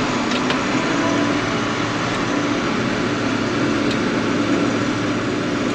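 Diesel engine of heavy farm harvest machinery running steadily, a constant drone with a held hum and no change in speed.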